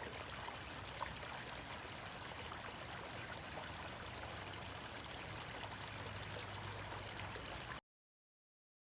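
Shallow brook babbling steadily over stones, an even rush of running water with a small tick about a second in; the sound cuts off abruptly near the end.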